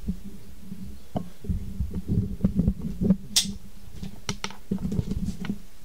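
Handling noise from a camera being picked up and moved: irregular low rubbing thumps with a few sharp clicks, over a faint steady hum.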